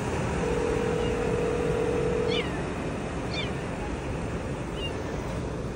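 A kitten trapped inside a car's engine compartment mewing several times, short high mews that each fall in pitch. Steady background noise runs throughout, with a steady hum in the first couple of seconds.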